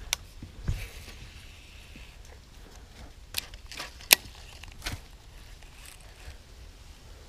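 A few sharp clicks and knocks from a baitcasting rod and reel being handled close to the microphone, the loudest click a little past halfway, with one dull thump near the start.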